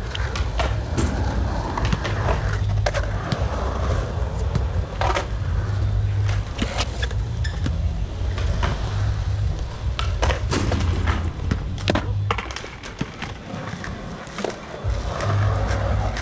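Skateboard wheels rolling on the concrete of a pool bowl, a steady low rumble broken by sharp clacks of the board and trucks. The rumble fades for a moment about three-quarters of the way through, then picks up again near the end.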